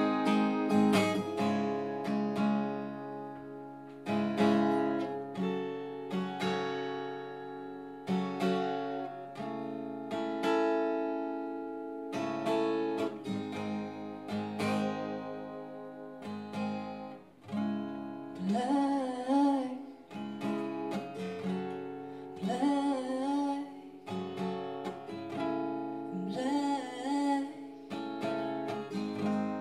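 Steel-string acoustic guitar played solo, chords picked and left ringing. About two-thirds of the way in, a woman's voice comes back in with long held notes with vibrato, a few seconds apart, over the guitar.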